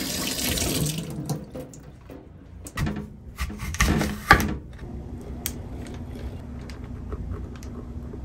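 Hands being washed under a running tap at a stainless-steel kitchen sink: the water comes on suddenly and runs strongest for about the first second, with a few louder splashes around the middle, then a lower steady flow.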